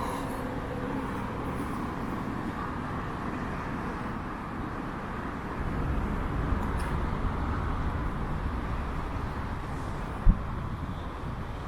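Highway traffic: steady road noise with a vehicle passing about halfway through, and one short low thump near the end.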